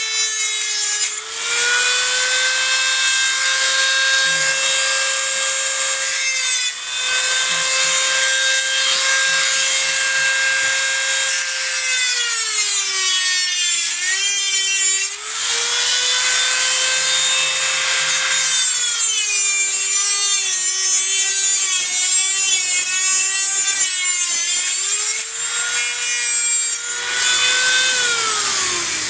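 Handheld rotary tool with a small cutting wheel cutting through thin sheet metal. It gives a steady high whine with a gritty hiss, its pitch sagging each time the wheel bites into the metal and recovering as it eases off. Near the end it is switched off and winds down, the whine falling in pitch.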